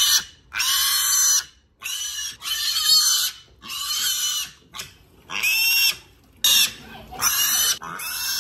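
Piglet squealing over and over while held and washed: shrill screams of about half a second to a second each, one after another with short breaks.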